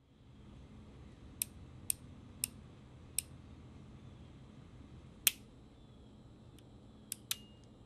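Sharp metal clicks from the action of a Pietta replica Colt 1851 Navy cap-and-ball revolver as its cylinder is turned and the hammer is seated on the one uncapped chamber. There are four clicks about half a second apart, a louder one a little past halfway, and a few more near the end.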